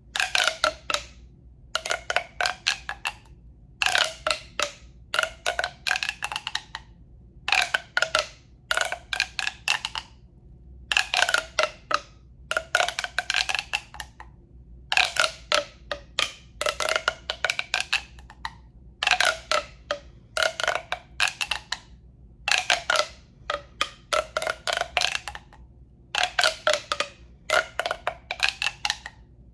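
A hollow tube tapped in quick bursts of several taps, one burst about every second. Each burst has a hollow, resonant ring whose pitch shifts within the burst.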